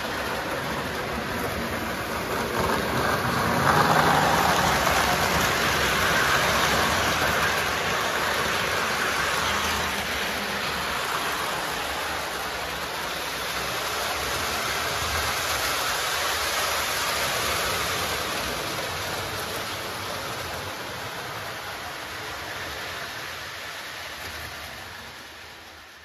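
Lionel O gauge model train running on the layout's three-rail track: a steady rolling rumble and whir with a hiss, louder from about three to ten seconds in, then fading near the end.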